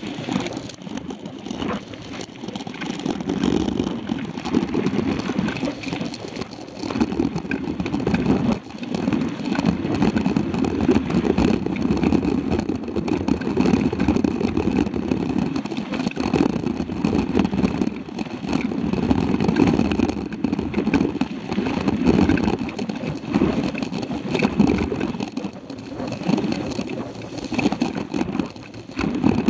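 Riding noise from a mountain bike moving fast on a dirt road: wind buffeting the handlebar camera's microphone together with the tyres rolling and the bike rattling over the dirt, swelling and easing every few seconds.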